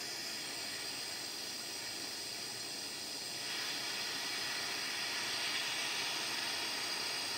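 Handheld gas torch flame hissing steadily as it heats a fluxed nut and thin steel bracket for soldering; the hiss grows slightly louder about three and a half seconds in.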